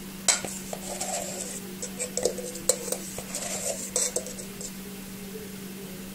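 Metal kitchen utensils clinking and clattering against dishes in a string of sharp, short clinks that stop for the last second or so.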